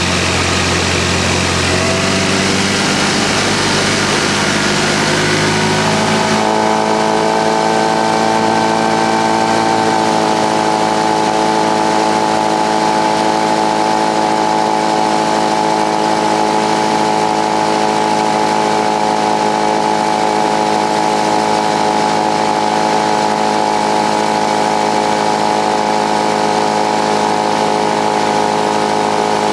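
Motorboat engine running at a steady speed. Its note shifts about six seconds in and then holds one even pitch.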